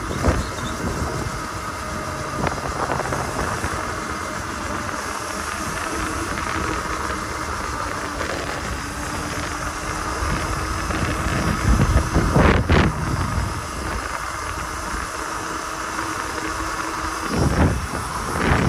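Wind and road noise from riding an electric dirt bike, with a faint steady hum. There are two louder rushes, about twelve seconds in and again near the end.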